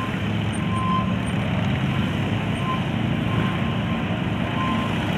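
Several police motorcycles' engines running at low revs as the bikes weave at walking pace through a tight cone course, giving a steady low engine drone. A faint short beep repeats every second or so.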